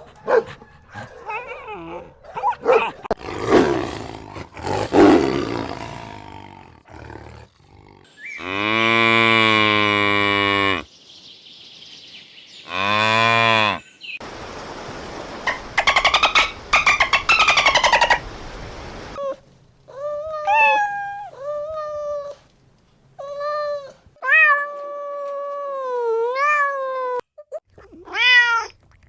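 A string of different animal calls, one after another. Roar-like calls come in the first half, then a run of cat meows fills the last third.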